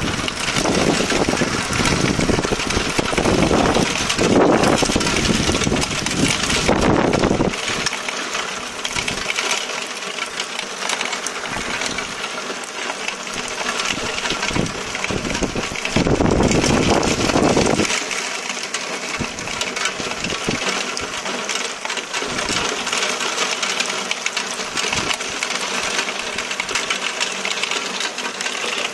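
Heavy thunderstorm downpour, with a fast, dense patter of raindrops hitting close by. A deeper rumble swells under the rain twice, for the first several seconds and again about sixteen seconds in.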